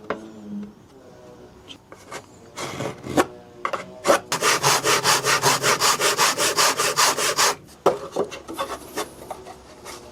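Hand saw cutting through a piece of wood in quick, even strokes, about seven a second, for roughly three and a half seconds starting about four seconds in, trimming the piece to length. Before it, a few knocks and a short scrape as the wood is handled.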